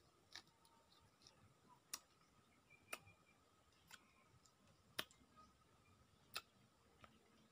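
Eating sounds from close up: about five sharp mouth clicks and smacks, irregularly spaced a second or so apart, while tamarind is chewed; otherwise near silence.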